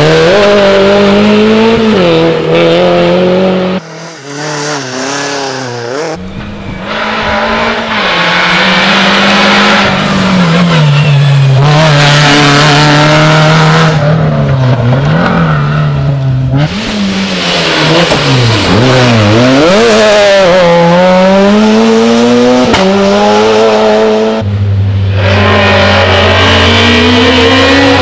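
Rally cars driven hard on a tarmac special stage, engines revving high and dropping through gear changes, lifts and braking, over and over. The sound changes abruptly several times as one car gives way to another, with a quieter stretch a few seconds in.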